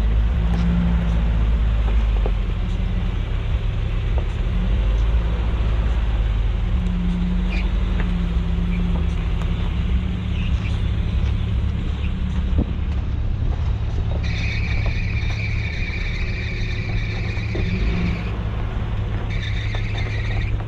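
Truck engine running at low revs with a steady low rumble while crawling off road. About 14 seconds in, a high, steady squeal comes in for several seconds, then returns near the end.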